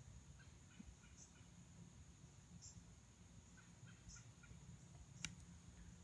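Near silence: faint room tone with a faint high chirp repeating about every second and a half, and a single sharp click about five seconds in.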